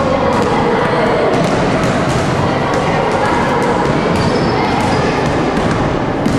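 Basketballs bouncing on a gym floor and striking backboards, irregular thuds, under the constant overlapping chatter of many children in a large echoing sports hall.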